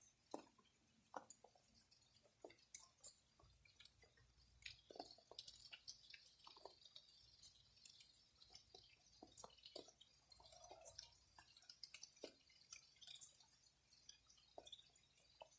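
Faint, irregular drips and taps of rain falling.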